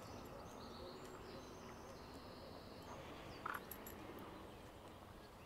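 Faint outdoor ambience with a few short, high bird chirps; the loudest, a brief call, comes about three and a half seconds in.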